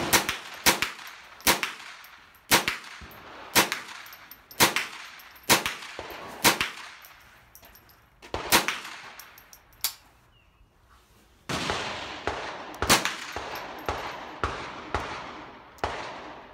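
Gunshots at a shooting range: sharp cracks about once a second for the first ten seconds, then after a short lull a steady rush of noise with further cracks over it.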